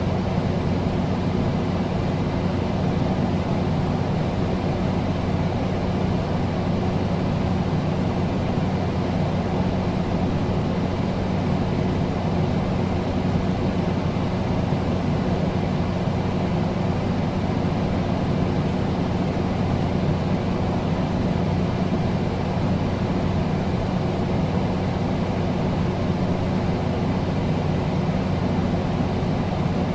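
Air conditioner running steadily: a constant rush of air over a low, even hum from its motor, with no change in speed.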